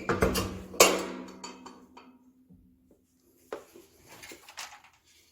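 Metal clanking on a wood-burning stove: two sharp knocks about a second apart leave a fading metallic ring. A lighter knock and some scraping follow near the end.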